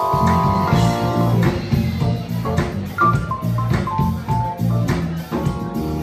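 Live R&B band playing: an electric bass guitar line comes in at the start under sustained electric keyboard chords, with drums keeping time.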